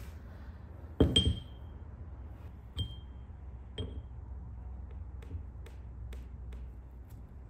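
Metal dumbbell shaft knocked into the bore of a round metal dumbbell head. There is a loud clank with a short high ring about a second in, two lighter ringing clinks near three and four seconds, then faint ticks.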